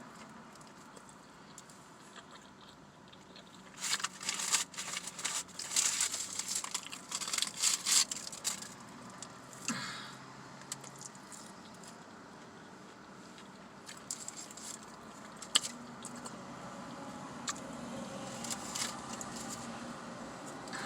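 Paper food packaging crinkling and rustling in a string of short, crackly handlings for several seconds, starting about four seconds in, then a few single rustles and clicks.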